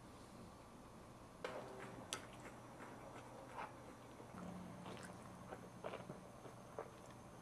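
Two-week-old Cairn Terrier puppies suckling at their mother: faint wet smacks and clicks, scattered irregularly, starting about a second and a half in.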